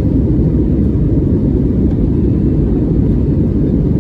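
Steady low rumble of a jet airliner's engines during takeoff, loud and even.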